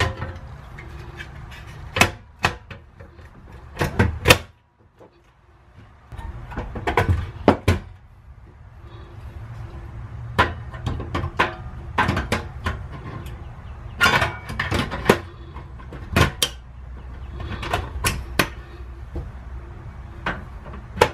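Irregular clicks and knocks of a metal portable butane stove being handled as a butane canister is fitted into its compartment and the compartment cover is closed, over a low steady hum.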